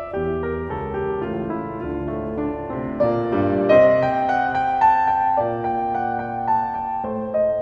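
Background music: gentle solo piano playing sustained chords and melody notes.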